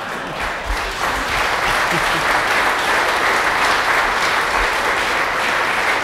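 Audience applauding, building up about a second in and then holding steady.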